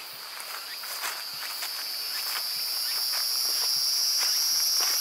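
An insect's steady, high-pitched buzzing drone that grows steadily louder, with footsteps on a trail.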